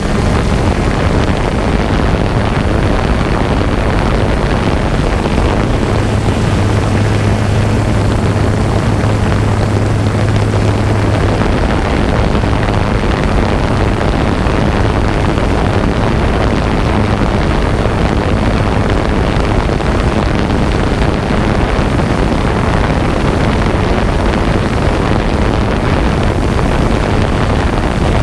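Drone's propellers and motors running in flight, a steady loud buzz mixed with rushing wind on the microphone, with a low hum that grows stronger for a few seconds in the first half.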